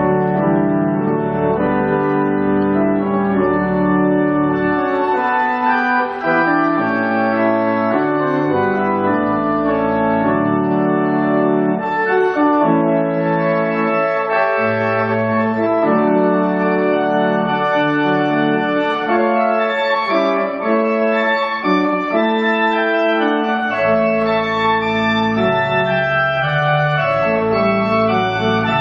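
Organ music: slow held chords that change every second or two over a bass line that drops out and comes back in.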